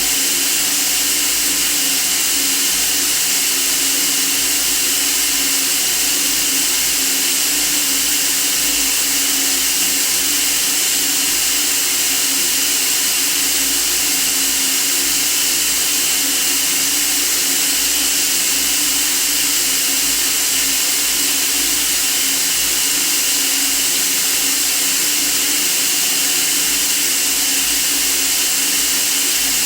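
Steady white noise for sleep: an even, unchanging hiss, strongest in the high range, with a faint low steady tone underneath.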